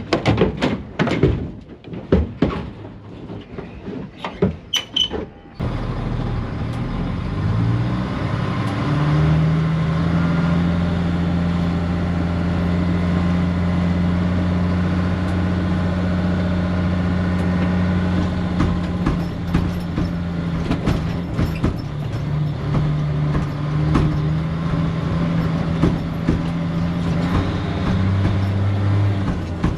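Several sharp knocks and rattles, then a truck engine running steadily from about five seconds in. Its pitch steps up a few seconds later as it pulls under way.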